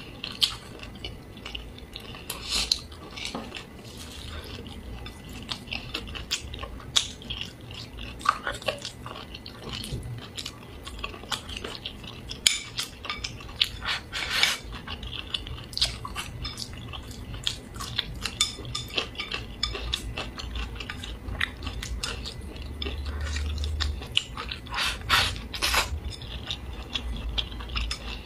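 Wooden chopsticks clicking and scraping against a ceramic bowl as food is shovelled up and eaten, with close-up chewing; the clicks come irregularly, many to the second at times.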